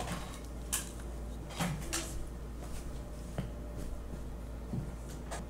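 Handling noise: scattered light clicks and rustles, about six in all, as small toy items are moved and set aside, over a low steady hum.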